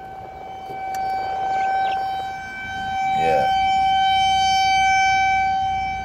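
An outdoor alarm siren holds one steady high tone while its loudness swells and fades, rising again to its loudest in the second half. The speaker calls it "loud as hell".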